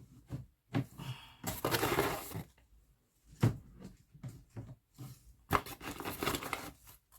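Cat food packages being handled and set down: rustling and scraping with a couple of sharp knocks, in short irregular bursts.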